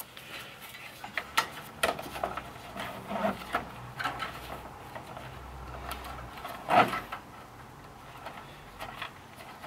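Small plastic clicks, rustles and scrapes of black nylon cable ties being handled and threaded around a radiator core support to hold the A/C condenser in place, with one louder click-and-scrape nearly seven seconds in.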